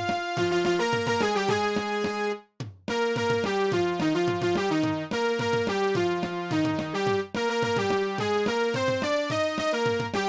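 Instrumental Japanese baseball cheering-song melody played on synthesizer or electronic keyboard, in a brisk stepwise tune with a short break about two and a half seconds in before the melody carries on.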